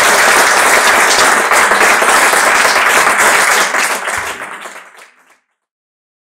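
Audience applauding steadily, fading out about four to five seconds in.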